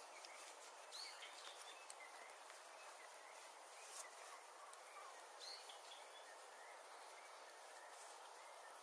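A songbird giving a few short, faint chirps, about a second in and again around five and a half seconds, over a steady background hiss.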